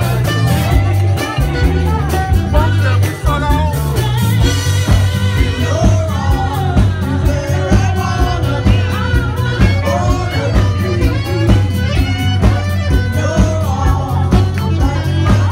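Live band playing an upbeat song, with a saxophone carrying the melody over a steady bass line and regular drum beats.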